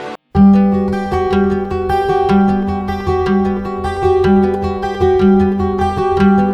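Background music: a guitar piece with plucked notes over a repeating low note, starting after a brief break about a third of a second in.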